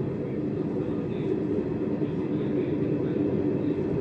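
Steady low rumble of a passenger train running along the track, wheels on rails heard from aboard the moving train.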